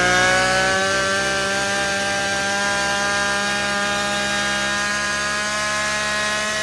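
Backpack brush cutter's small petrol engine running flat out, a steady high-pitched whine that creeps slightly higher. The throttle is not opened: after a home carburettor repair the engine races to maximum RPM on its own and smokes from overheating.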